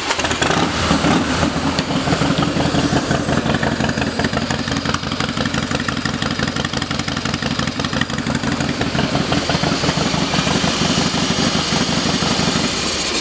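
2003 Harley-Davidson FXST Softail Standard's Twin Cam 88B V-twin, fitted with Vance & Hines exhaust pipes, starting and then idling with a steady, even beat. It stops suddenly near the end.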